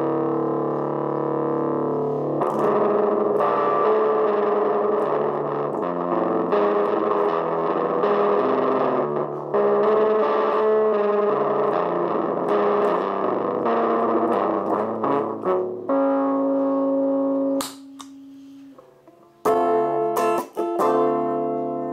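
Electric guitar (Gibson Les Paul) played through a Tone Bender-style fuzz pedal into a small single-ECL82 valve amp: thick, distorted sustained notes and riffs. About sixteen seconds in the playing thins to a few ringing held notes, drops away briefly, then comes back as chords.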